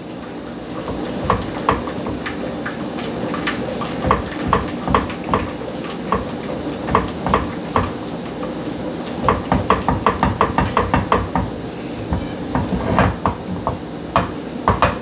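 Diced jalapeños cooking in melted butter in a pan: irregular crackles and light clicks, thickest around ten seconds in, over a steady low hum.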